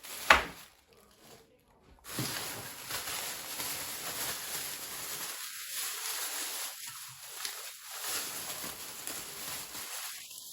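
A sharp click near the start, then plastic bags and small plastic parts rustling and rubbing as they are handled.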